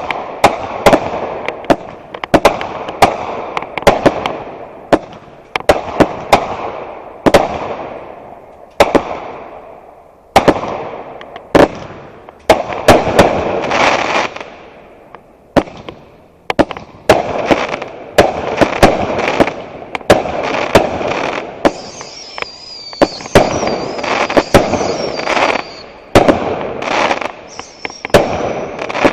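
Fireworks going off in a rapid barrage: sharp bangs several times a second, each trailing off in a fading crackle. A wavering high whistle rises over the bangs about two-thirds of the way through and comes again briefly near the end.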